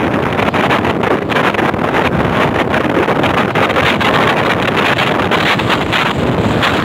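Strong typhoon wind buffeting the phone's microphone: a loud, unbroken rush of wind noise with rapid fluttering gusts.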